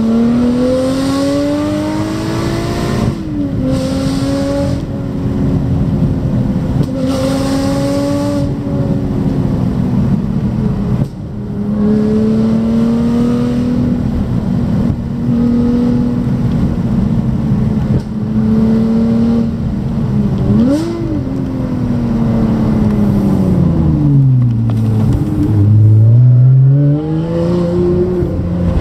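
Lotus Evora's V6 with a Carpristo aftermarket exhaust, heard from inside the cabin under way. The engine note rises, drops abruptly about three seconds in and then holds steady for a long stretch. Near the end it slides down low as the car slows, then climbs again as it accelerates, loudest just before the end.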